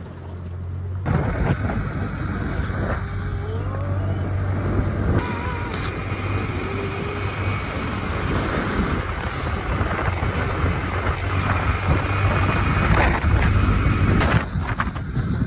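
Motor scooter on the move, its engine running as a steady low hum under heavy wind rushing on the microphone. The first second is quieter before the wind noise builds.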